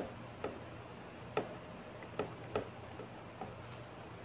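A person eating by hand makes about six small, sharp clicks at irregular intervals.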